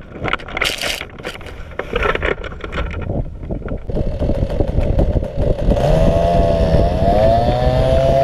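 Knocks and rustling in grass, then the small two-stroke engine of a powered hang-glider harness running, getting louder about halfway through and rising in pitch near the end.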